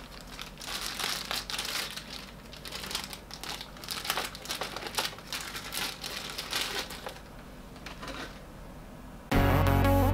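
Thin clear plastic packaging bags crinkling and rustling as they are handled and pulled open around the figure's parts, in irregular bursts that thin out toward the end. Background music comes in abruptly near the end.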